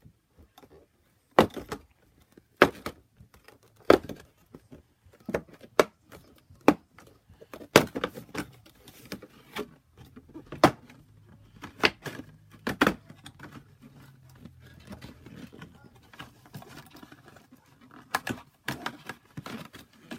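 Irregular sharp clicks and knocks of hard plastic as small action-figure accessories are popped out of a plastic packaging tray and handled, with light rustling between the clicks.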